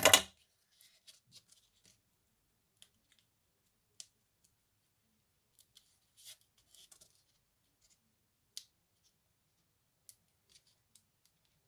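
Cardstock being handled and pressed down by hand: a sharp rustle right at the start, then scattered light paper taps and crinkles as a die-cut card panel is positioned.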